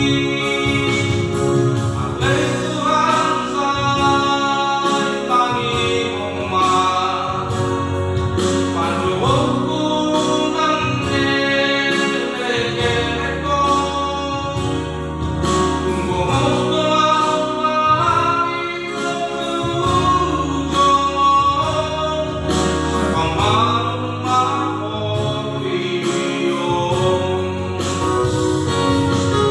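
A man singing a Christian song while accompanying himself on a Yamaha PSR-S750 keyboard, with a sung melody over sustained keyboard chords and bass.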